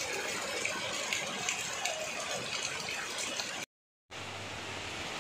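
Heavy rain splashing into fast-flowing muddy runoff, with small spattering drops and a spout of water pouring into the flow. Breaks off into a moment of silence about three and a half seconds in, then a steady hiss of rain on trees.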